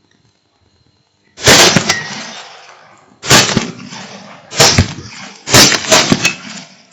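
A string of about five loud rifle shots, fired irregularly a second or two apart, each trailing off in a long rolling echo. Two hunters are firing on a pair of feral hogs.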